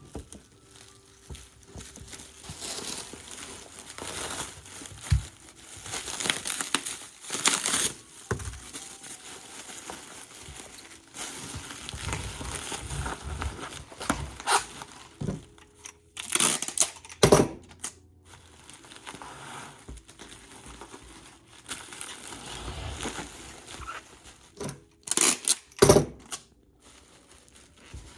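Packing material crinkling and rustling as it is handled and wrapped, in irregular bursts with a few sharp, louder crackles around the middle and near the end.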